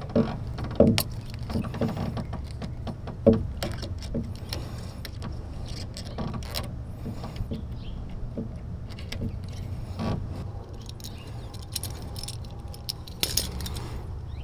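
Scattered clicks, knocks and light metallic rattles of small tools or hardware being handled during wiring work, over a steady low hum.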